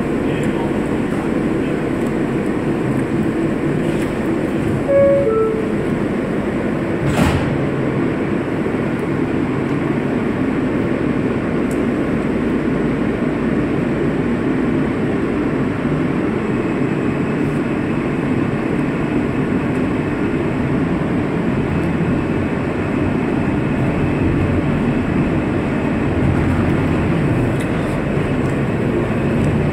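Inside a New York City subway car: the steady rumble of the train, with a two-note descending door-closing chime about five seconds in and a sharp bang of the doors shutting about two seconds later. A faint high whine joins from about halfway as the train pulls out of the station.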